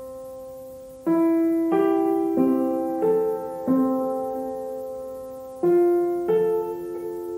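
Gentle piano background music: slow single notes and soft chords, each struck and left to fade before the next.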